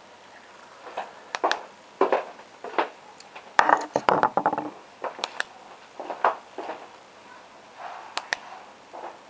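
DEVE elevator push button being handled and pressed: sharp clicks, some in quick pairs, among rubbing and handling noise from fingers on its metal ring.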